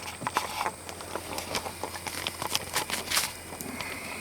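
Handling noise from a headset-mounted camera as the headset is put on: irregular clicks, rubs and knocks over a faint steady low hum.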